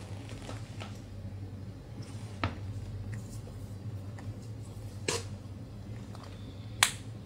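Handling noise from a tablet being turned over in the hands: a few light clicks and taps on its glass and aluminium body, the sharpest near the end, over a low steady hum.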